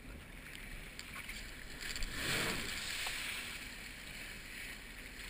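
Sea-Doo Spark jet ski running along the water with a steady rush of spray and wind; about two seconds in the sound swells as it throttles up and kicks up a rooster tail, then eases back to a steady run.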